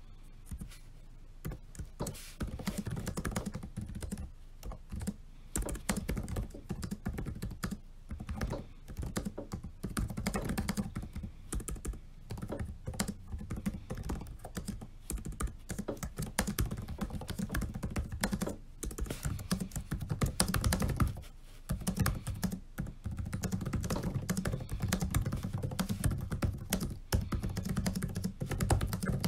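Fast typing on a laptop keyboard: dense runs of key clicks with a few short pauses, starting about a second in.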